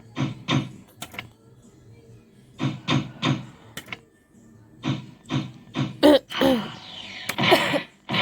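Fruit machine's electronic sound effects: groups of short pitched blips as the reels play, then a louder jingle of gliding tones from about six seconds in.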